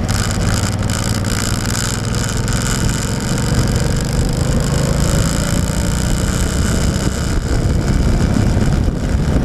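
Motorcycle engine running at cruising speed on a rain-wet road, under steady wind noise on the microphone and the hiss of tyres on wet pavement.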